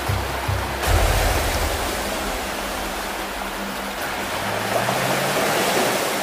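Rushing, splashing creek water as 4x4 trucks drive through a shallow rocky stream, under background music whose low beat drops out about a second in.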